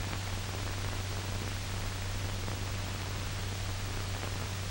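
Steady hiss and low hum of an old optical film soundtrack, with a few faint clicks.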